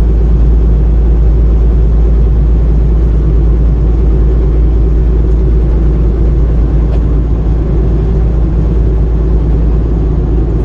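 Steady low engine and road rumble heard from inside a vehicle cab while driving at speed.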